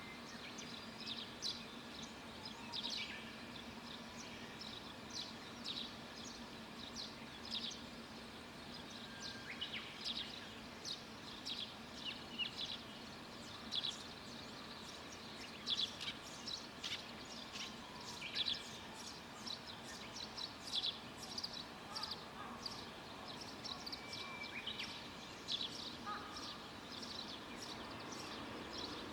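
Small birds chirping outdoors, with many short, high calls coming several a second, over a steady faint hiss of background ambience.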